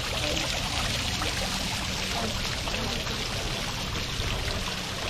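Water running and splashing in a steady flow.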